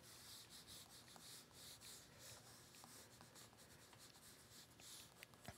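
Faint scratching of a colored pencil sketching on paper in many short, quick strokes, with a small click near the end.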